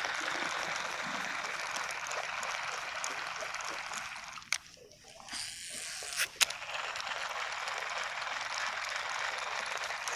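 Steady rushing of water. It drops away for about two seconds near the middle, with a few sharp clicks around the gap.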